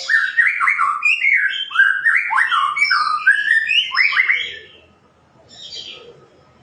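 Shama singing a fast, loud run of varied whistled notes that slide up and down, stopping about four and a half seconds in, then one short phrase after a pause.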